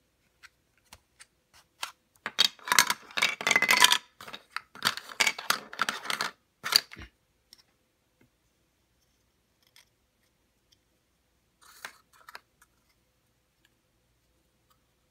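Plastic pieces of a six-piece star puzzle clicking and scraping against each other as they are pulled apart, with clatter as pieces are set down on a table. The busiest stretch starts about two seconds in and lasts about four seconds. After that there are only a few faint clicks and a brief rustle.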